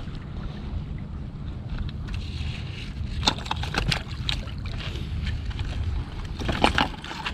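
A hooked barramundi splashing and thrashing in shallow water as it is pulled in on the line, in short bursts about three seconds in and again near the end, over a steady low rumble of wind on the microphone.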